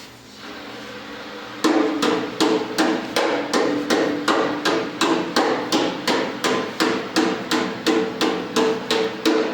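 A hammer striking metal in a steady rhythm, about three blows a second, each blow ringing. It starts about a second and a half in, during work on a forklift hydraulic jack cylinder.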